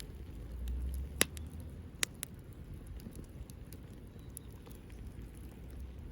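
Wood fire crackling in a Belmont TABI fire pit, scattered small ticks with a sharp pop about a second in and two more around two seconds in, over a low rumble.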